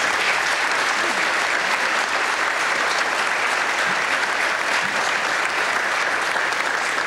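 Audience applauding: many people clapping together, a dense and steady applause that starts sharply and holds at the same level.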